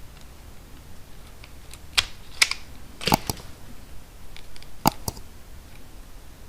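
Irregular sharp clicks and taps of small hand tools and wiring parts being handled during a wiring repair, a few louder ones about two, three and five seconds in.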